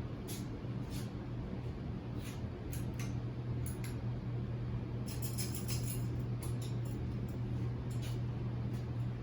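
52-inch Hunter ceiling fan running: a steady low motor hum with light, irregular ticks.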